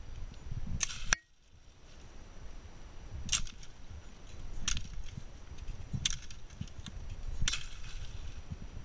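Footsteps on a wooded trail: a short, crisp crunch about every one and a half seconds over a low rumble of the body-mounted camera jostling. The rumble drops away suddenly about a second in, then builds again.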